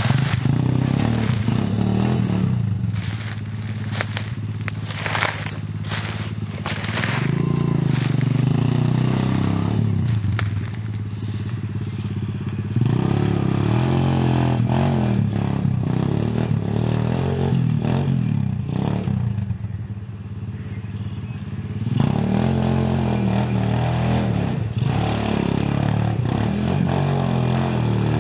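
Pitster Pro pit bike's small single-cylinder four-stroke engine, built up with a big bore, race head and race cams, revving up and down over and over as it is ridden. It drops back toward idle a few times between bursts of throttle. Sharp crackles and knocks come through during the first several seconds.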